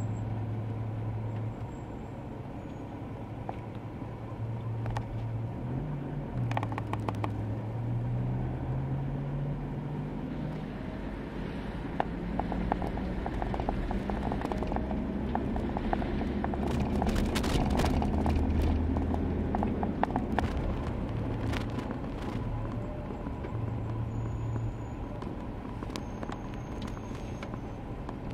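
A car's engine running and tyres rolling over a rough, partly unpaved mountain road, heard from inside the car. The engine note rises and falls as the car slows and speeds up. Scattered knocks and rattles from the bumpy surface come more often past the middle, where the rumble grows loudest.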